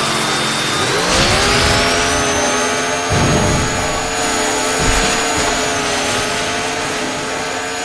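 Chainsaw engine sound effect revving up steeply about a second in, then running steadily at high speed, with heavy low thuds a few seconds in.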